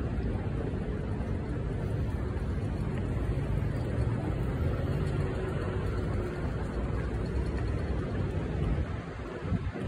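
Outdoor street ambience: a steady low rumble with no distinct events, dipping slightly shortly before the end.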